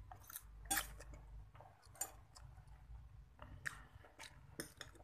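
Close-miked eating: a person chewing instant noodles, with several short sharp mouth clicks and smacks scattered through it.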